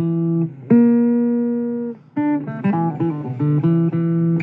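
Blues guitar playing single notes, some bent up into pitch as they are struck and left ringing to fade.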